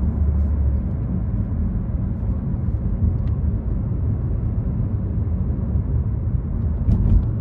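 Steady low rumble of tyre, road and engine noise heard inside the cabin of a Volkswagen Passat cruising on a highway. A couple of faint clicks come near the end.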